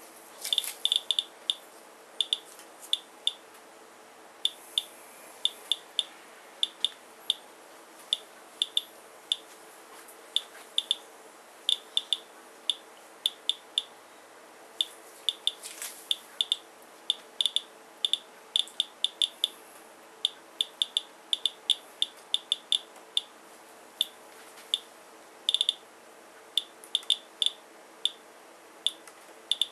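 Geiger counter beeping at random, uneven intervals, about two short high beeps a second. Each beep is a detected count as it measures radiation from a rain-soaked paper towel sample.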